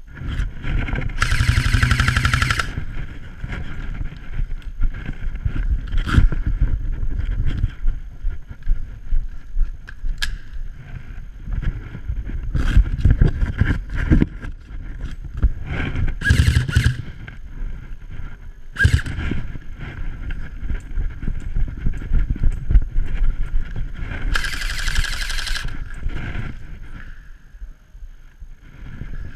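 Airsoft guns firing in several full-auto bursts, the longest about a second and a half, over a constant low rumble.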